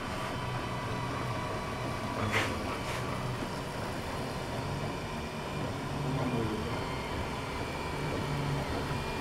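Stepper motors of an open-frame 3D printer humming in low tones that change pitch as the print head and bed move, over the steady whir of the hotend cooling fan. Two sharp clicks sound about two and a half and three seconds in.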